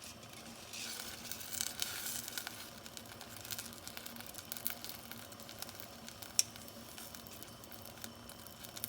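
Dried barberries sizzling and crackling in butter and oil in a pot, with one sharp tick about six seconds in.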